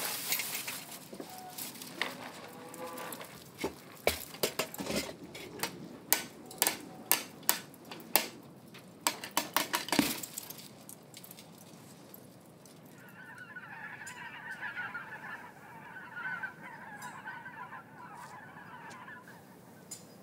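A quick run of sharp knocks and clicks in the first half, then several seconds of farmyard fowl calling steadily, geese-like honking chatter.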